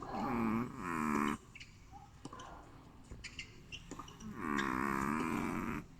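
Long-coat Chihuahua snoring in its sleep: three drawn-out, pitched snores, two short ones back to back at the start and a longer one past the middle.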